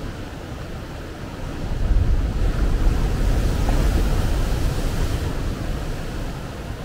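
Ocean wave breaking close to shore against rocks and washing up a sandy beach. The surf builds about a second and a half in, with a deep rumble and hiss, is loudest through the middle and fades near the end.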